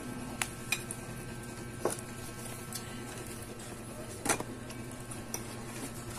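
A handful of sharp clinks of tableware, spoons and plates knocked during a meal, the loudest a little past the middle, over a steady low hum.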